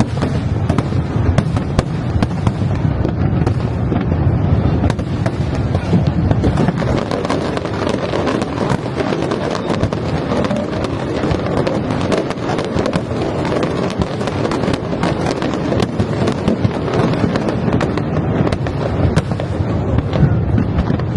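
Fireworks display: a dense, continuous run of shell bursts and crackling, with deep booms and no pauses.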